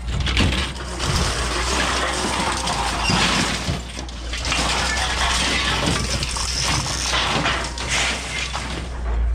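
Aluminum window and screen frames clattering and scraping against each other as they are dragged off a pickup bed, with broken window glass crunching and tinkling among them.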